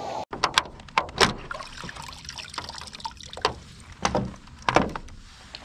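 Fishing gear being handled in the cockpit of a plastic kayak: a scattered run of sharp clicks and hollow knocks against the hull, the loudest about a second in and twice more near the end, over light water trickle.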